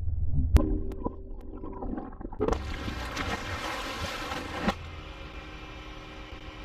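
Swimming pool heard through an underwater microphone: a steady low rumble, a sharp click about half a second in, then a loud hissing rush of water from about two and a half seconds in that cuts off suddenly about two seconds later.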